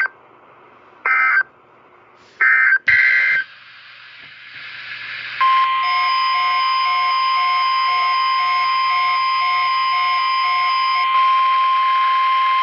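NOAA Weather Radio test transmission: a few short screeching bursts of SAME digital header data, then from about five seconds in a loud, steady warning alarm tone, with a pulsing beep over it until about eleven seconds in.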